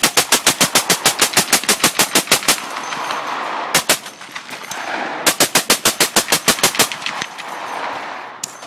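Suppressed M2 Browning .50 BMG heavy machine gun firing full auto in bursts, about eight shots a second. A long burst runs to about two and a half seconds in, then two shots near four seconds, a second burst from about five to seven seconds, and a single shot near the end.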